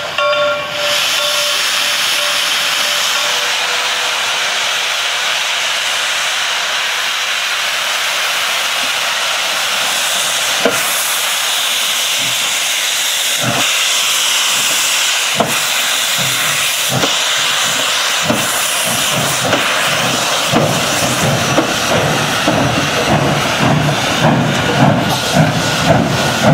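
Reading & Northern 425 and CNJ 113 steam locomotives venting steam from open cylinder cocks in a loud steady hiss, with a steam whistle fading out in the first few seconds. Occasional sharp knocks come through the hiss in the middle. About twenty seconds in, exhaust chuffs begin and quicken as the engines start to pull away.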